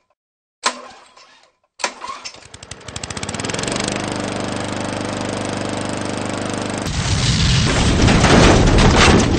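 Lawn mower engine starting: two sharp attempts, then it catches about two seconds in and speeds up into a steady run. About seven seconds in it turns louder and rougher.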